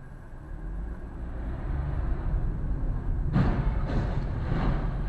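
Steady low road and engine rumble of a car recorded by a dash camera, growing louder, with a sudden loud noisy burst a little over three seconds in and more noise after it.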